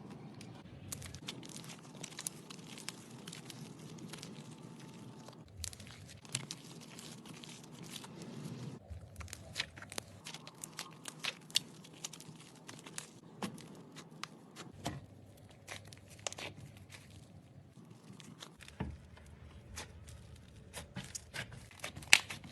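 Something crisp and crumbly being crushed and broken apart: a steady run of irregular small crackles and crunches, with a handful of louder sharp snaps along the way.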